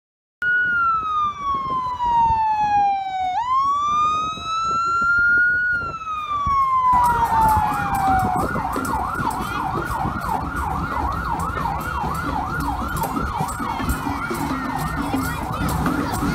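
Emergency vehicle siren with a slow wail that falls, rises and falls again. About seven seconds in a fast yelp takes over, with street and crowd noise under it.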